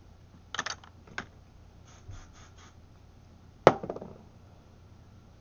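A few brief clicks and light rustling from handling a teasing comb and lifted hair, with one sharp knock about two-thirds of the way through.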